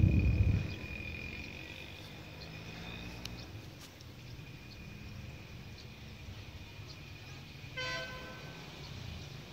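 Quiet outdoor ambience with a steady high tone, opened by a low rumble of wind on the microphone that dies away within the first second. About eight seconds in, a vehicle horn gives one short toot.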